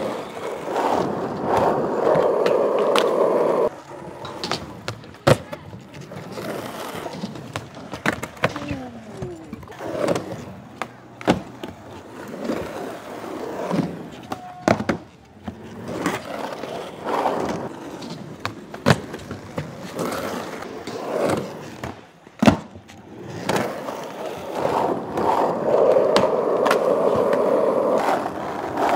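Skateboard wheels rolling over concrete and ramp surfaces, loudest about a second in and again near the end. Sharp clacks and impacts from the board are scattered throughout.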